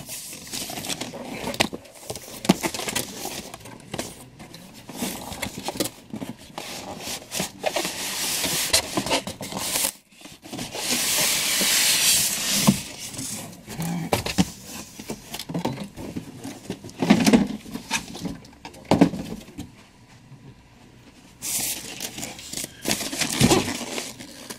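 Cardboard and styrofoam packaging being handled: a boxed statue slid out of its cardboard shipping carton and a taped styrofoam shell lifted out, with rustling, scraping and knocks, and one long scrape about halfway through.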